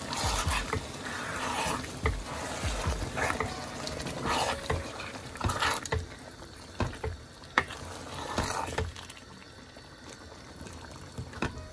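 A wooden spoon stirring minced meat and potato pieces through freshly added water in a pot: wet sloshing swishes with a few sharp knocks of the spoon against the pot, growing quieter after about six seconds.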